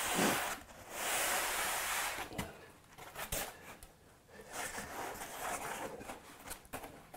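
Foam packaging blocks rubbing against each other and against the inverter's case as they are shifted by hand: two longer scrapes in the first couple of seconds, then scattered knocks and rustles.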